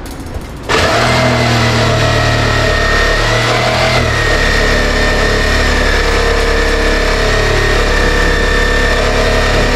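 Electric power tool motor switched on about a second in and running steadily, cutting into T1-11 siding to open a hole for a light-switch box. Its pitch dips slightly about four seconds in.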